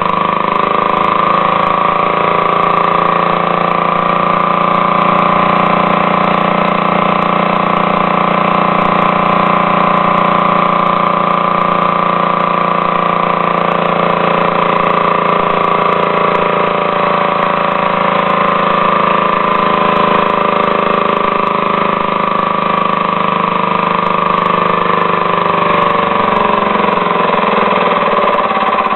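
Compressed-air motor built from a stripped leaf blower engine, driven through a timed air valve, running steadily; its speed wavers slightly.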